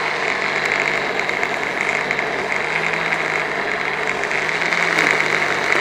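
Electric blender running steadily, grinding a wet spice paste of chillies, garlic, galangal, ginger, candlenut, lemongrass and andaliman with a little water.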